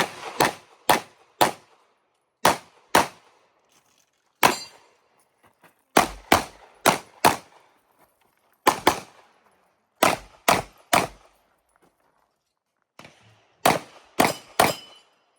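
Rapid handgun fire from a red-dot-sighted competition pistol: about twenty shots in quick pairs and strings of three or four, separated by short pauses, with a faint metallic ring after some shots.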